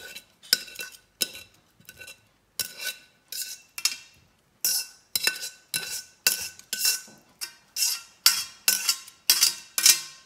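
Metal serving tongs clinking against a pan and ceramic plates, over and over, about one to two sharp clinks a second, each ringing briefly.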